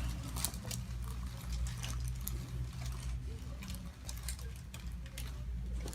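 Faint scattered small clicks and rustles of handling over a steady low hum.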